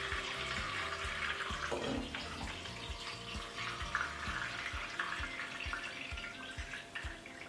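Water swirling down in a vortex from one upturned plastic bottle into another through a small hole in a plastic disc taped between their necks. It makes a steady rushing flow.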